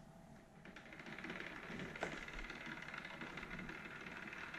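The capstan drive of a 1974 Wharfedale XP cassette deck starts running just under a second in and keeps up a faint, steady mechanical racket, possibly the belts slipping. A single click about two seconds in.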